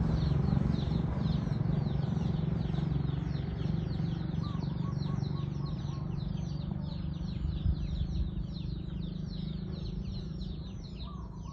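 Chickens: a dense run of high, quick, falling peeps, several a second, with a few lower clucking notes, over a steady low hum.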